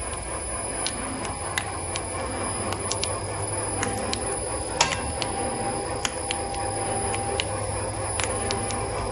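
Wood-pulp molding machine running: an embossing roller turns over the paste strip with a steady low hum. Irregular sharp ticks sound throughout, with one louder click about five seconds in.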